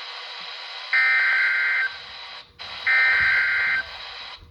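Emergency Alert System SAME header data bursts over NOAA Weather Radio: two identical buzzy two-tone digital bursts, each about a second long and a second apart, over steady radio static. They mark the start of an EAS alert, here a Child Abduction Emergency.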